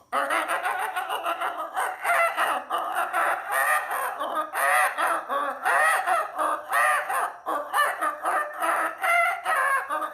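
Chicken-like clucking and crowing calls in a dense, unbroken run that starts and stops abruptly.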